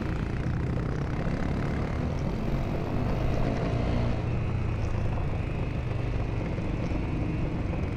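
Dual-sport motorcycle engine running steadily under way on a gravel track, with wind rushing over the microphone.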